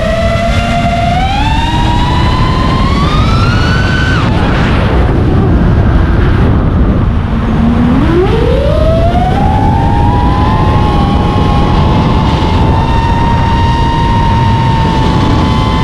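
FPV quadcopter's motors whining, the pitch climbing with throttle, dropping sharply about four seconds in, falling low, then climbing again near eight seconds and holding steady, over a constant low rush of noise.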